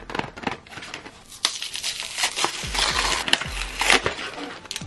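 A stiff plastic blister pack of highlighters being pried and torn open by hand: crinkling and crackling plastic with sharp snaps, busiest from about a second and a half in until about four seconds.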